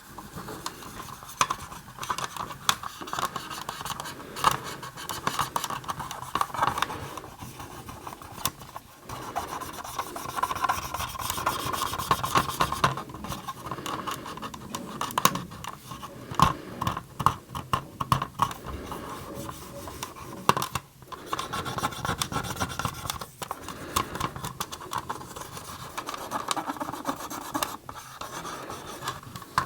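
An oiled cotton swab is rubbed hard along decal edges on the hard plastic body of a vintage G.I. Joe Crusader toy. It makes a continuous scratchy rubbing with many small clicks and knocks, and breaks off briefly a few times.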